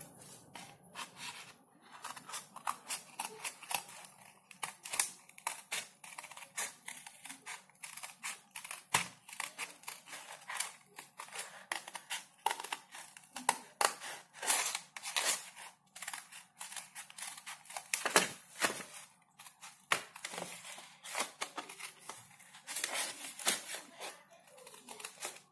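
Scissors snipping through a folded sheet of paper: many short cuts in an irregular run as the blades work along curved lines.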